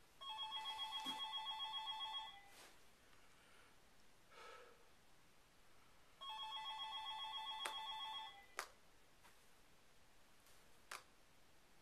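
Telephone ringing with an electronic trilling ring: two rings of about two seconds each, the second starting about six seconds in. A few faint clicks follow near the end.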